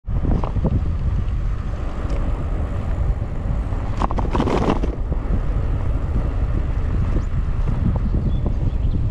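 Wind rushing over a handlebar-mounted GoPro's microphone while cycling, a steady low rumble, with a brief louder rush lasting about a second, about four seconds in.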